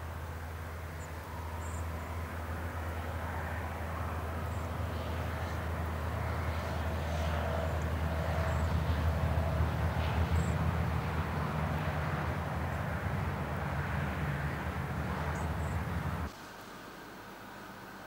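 Outdoor background noise with a low steady rumble that slowly swells and then eases off. About sixteen seconds in it cuts off suddenly to a quieter, even room tone.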